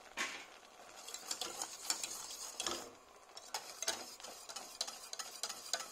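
Metal balloon whisk beating a thin béchamel in a pot, its wires clicking and scraping rapidly against the pan, with a short pause about three seconds in.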